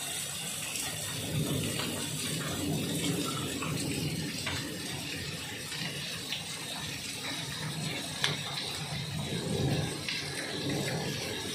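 Floodwater rushing down a street like a torrent: a steady rush with a low churning rumble that swells and fades, and a couple of sharp ticks.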